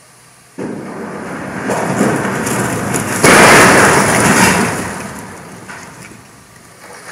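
Ferry MF Hardanger's steel bow ramming and grinding into the concrete quay, breaking it up. It crashes in suddenly about half a second in, grows louder to its loudest about three seconds in, then fades. The ship had lost power on its way in and could not stop.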